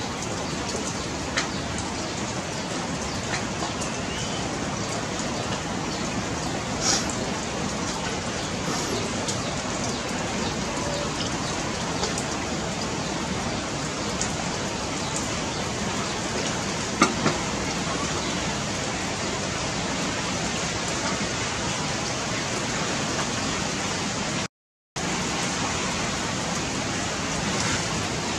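Steady rain, an even hiss with a few faint clicks. The sound drops out briefly about 25 seconds in.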